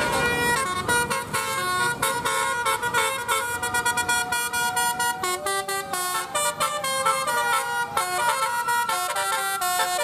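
Bus telolet horn of the Basuri type, a set of roof-mounted air-horn trumpets, playing a quick tune of held notes that step from pitch to pitch several times a second.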